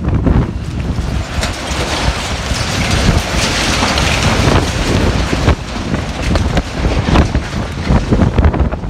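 Strong wind buffeting the microphone, swelling into a louder rushing gust in the middle, with scattered knocks and rattles from a large marquee's fabric and metal frame being torn apart.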